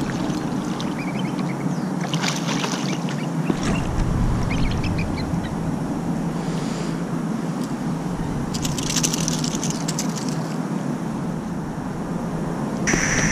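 A small hooked fish splashing at the water's surface as it is reeled in and lifted out, in short scattered splashes over a steady low hum.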